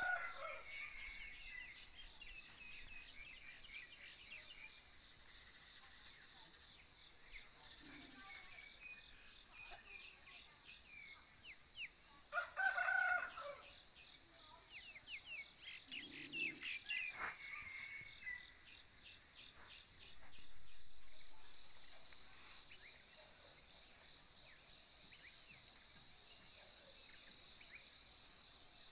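Faint rural ambience: insects trill steadily in a high, evenly pulsing tone, and a rooster crows once about twelve seconds in, with a few fainter calls around it.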